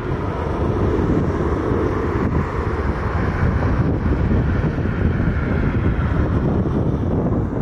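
Gusty wind buffeting the microphone, a loud, rough, steady noise heaviest in the low end.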